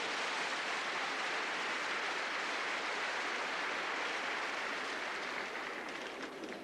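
Large arena crowd applauding steadily for a completed vault.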